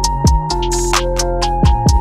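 Electronic background music: deep drum hits that drop in pitch, quick hi-hat ticks and held bass and synth notes, with a short hissy cymbal-like swell just before the one-second mark.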